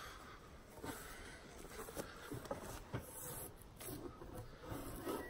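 Faint knocks and handling sounds, then a drawknife scraping against the bark of a lime log near the end.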